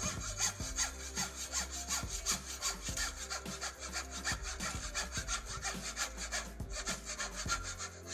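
Japanese hand saw cutting through a timber joint piece in quick, even strokes along the marked ink line. The sawing stops near the end.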